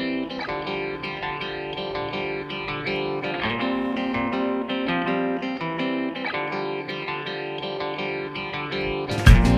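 Background music led by guitar, with notes changing every second or so. Near the end a much louder, heavier sound cuts in abruptly.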